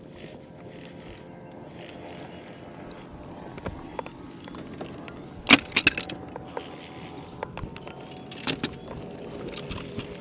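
A hooked bass is brought in beside a fiberglass bass boat: short swishing bursts every second or two, then a cluster of sharp knocks and thumps about halfway through, the loudest sounds, as the fish is swung aboard onto the deck. A few more knocks follow near the end.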